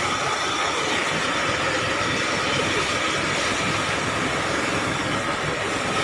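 Steady rushing noise of a burning bus being hosed down: the fire and the hose's water spray together, with no letup.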